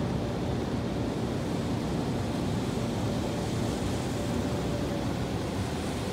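Automatic car wash heard from inside the car: a steady rush of water spraying against the body and windows, with a faint machine hum underneath.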